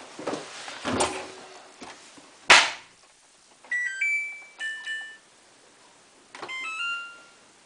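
Samsung WF8804RPA washing machine's control panel sounding two short multi-note electronic chimes about a second apart, each a few stepped beeps, as the cycle and options are set. Before them come light handling knocks and one sharp click, the loudest sound.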